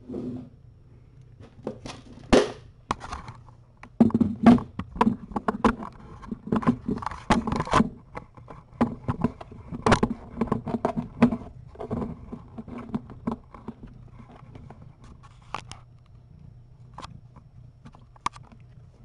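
A mother cat and her kittens shuffling about on a fleece bed in a box: scratching, rustling and knocks, busiest in the middle and thinning out near the end.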